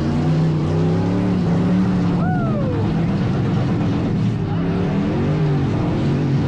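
Demolition derby cars' engines running and revving at once, their pitches rising and falling. About two seconds in, a short high sound falls in pitch over it.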